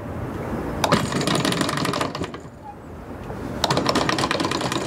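Electric anchor windlass running, its stainless-steel anchor chain rattling over the gypsy in two runs, first paying out the 20 kg stainless anchor and then hauling it back up to the bow roller.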